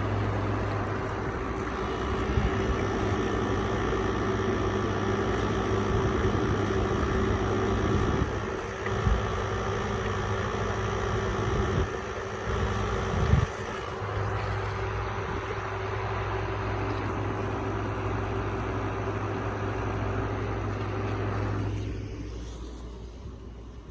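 Window air conditioner running: a steady low hum under a rush of fan noise, with a few knocks in the middle. The sound fades away near the end.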